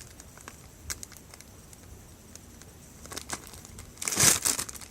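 Plastic packaging crinkling as it is handled: a few brief rustles, then a louder burst of crinkling near the end.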